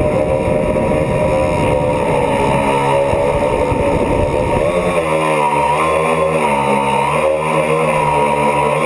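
A tricopter's electric motors and propellers whining steadily, the pitch wavering up and down with throttle changes in the second half. A rough low rumble under the whine drops away about halfway through.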